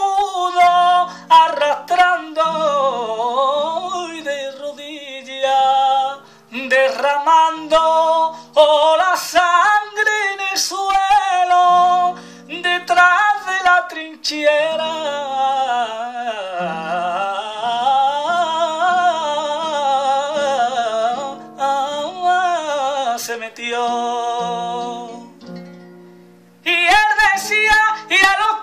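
A man singing a flamenco milonga in long, wavering sung lines, accompanying himself on a classical nylon-string guitar with plucked notes and chords. Near the end the voice drops out for a moment and the guitar comes back with a burst of fast strumming.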